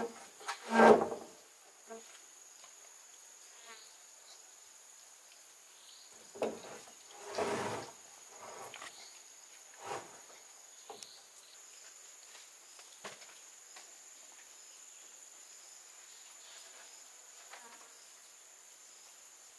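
Crickets trilling steadily on one high pitch. A few scattered knocks and scrapes of work or handling sound over them, the loudest about a second in and another cluster around seven to eight seconds.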